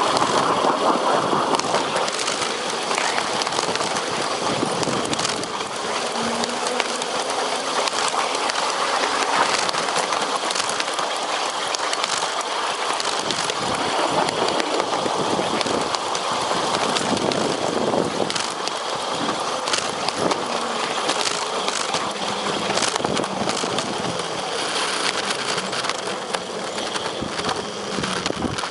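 Fairmont rail speeder rolling along the track: steady wheel-on-rail noise with the motor running, broken by frequent sharp clicks and clatter.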